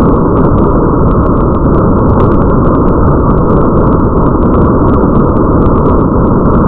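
Rain ambience: a steady, muffled rush of rain with a deep low rumble, and many small drop ticks scattered over it.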